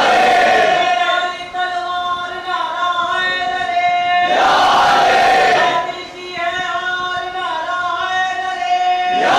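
A crowd of men chanting together over a steady held note. About every four and a half seconds the crowd swells into a loud collective shout, three times: at the start, in the middle and at the end.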